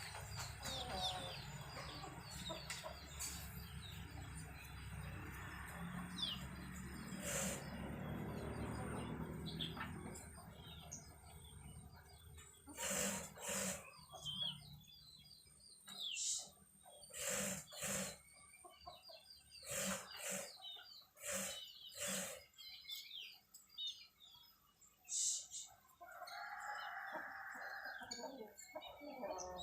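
Chickens clucking: a run of short, sharp clucks about a second apart through the middle, and a longer call near the end, with small birds chirping faintly.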